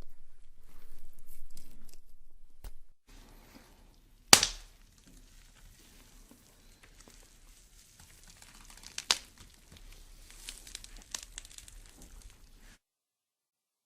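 Crinkling, crackling sound effect: a noisy stretch at first, then sparse crackles broken by a sharp loud snap about four seconds in and a smaller one about nine seconds in.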